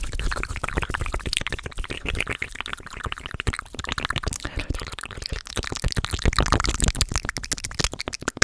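Fast ASMR mouth sounds: a rapid, unbroken run of clicks, pops and smacks made with the lips and tongue.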